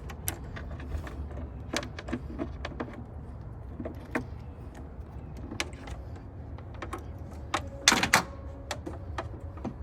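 Hand-tightening a hose clamp on the air filter of a cold air intake: scattered light clicks and knocks of the tool and the plastic and metal parts. About eight seconds in there is a louder noise lasting about half a second.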